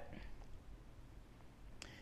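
Near silence: room tone, with a faint click shortly before the end.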